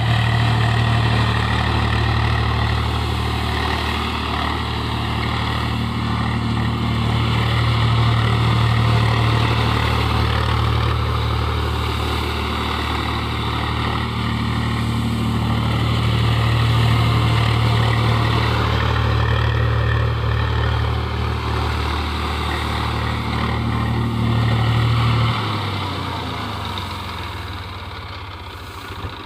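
Engine of farm machinery running steadily while paddy is threshed. About 25 seconds in, its low hum drops away and the sound fades.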